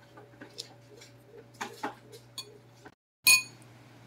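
Metal spoon clinking against a ceramic bowl of noodle soup: a few light clinks, then one much louder clink about three seconds in, over a steady low hum.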